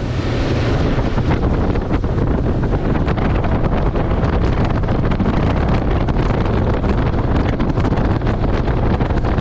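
Wind buffeting the microphone: a loud, steady rumbling rush with no break.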